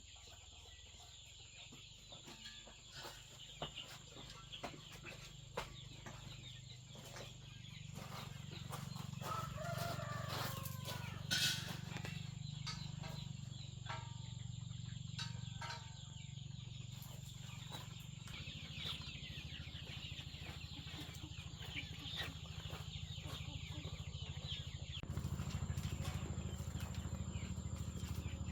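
Chickens clucking softly, with scattered light clicks and a steady high-pitched buzz behind them.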